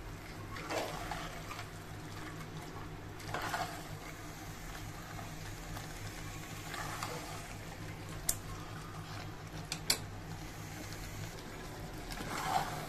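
Metal spoon stirring thick, wet mutton masala in an aluminium pressure cooker while the meat is being fried down: soft wet scraping strokes every few seconds, with two sharp clicks of the spoon against the pot later on. A steady low hum runs underneath.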